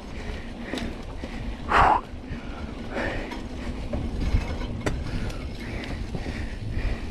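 Mountain bike rolling fast over a rough dirt trail: a steady rumble from the tyres, with the frame and chain rattling and knocking over the bumps. There is a short, louder noise just under two seconds in.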